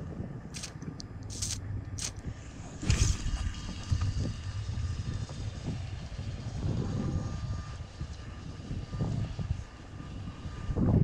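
Low, steady rumble of wind buffeting the microphone, with a few sharp clicks in the first two seconds and a knock about three seconds in.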